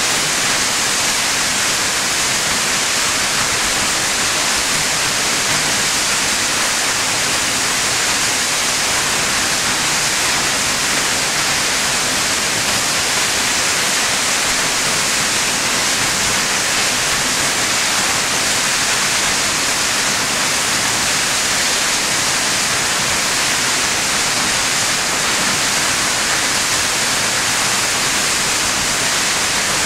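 Steady, loud rush of South Falls, a 177-foot waterfall, its water crashing down into the pool below.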